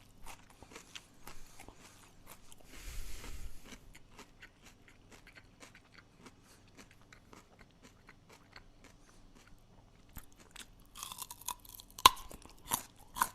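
A person chewing crunchy food close to the microphone: a steady run of small crisp crunches, with a brief hiss about three seconds in. Louder crunches come near the end, including one sharp crack about twelve seconds in.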